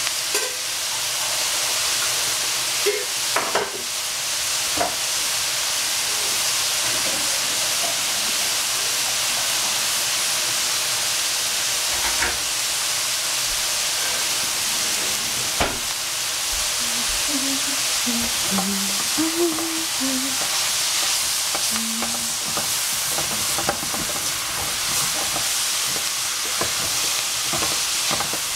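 Cabbage, pork and peppers sizzling as they fry in a pan, a steady high hiss with a few scattered knocks. Near the end a wooden spatula stirs the food.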